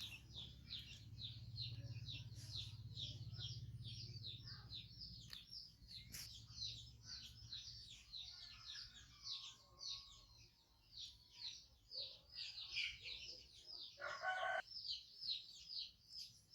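Birds chirping in a quick, unbroken series of short falling notes, with one brief louder call about fourteen seconds in and a low hum during the first few seconds.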